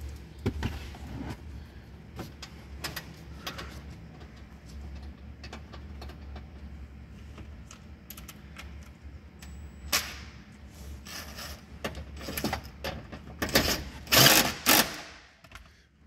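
Hand work on car parts: scattered clicks and knocks of parts and tools being handled, with a louder burst of clattering near the end, over a steady low hum.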